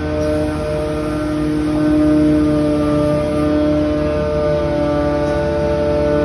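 Loud, blaring noise from a works truck: several steady held tones over the low rumble of its running engine, with small shifts in pitch.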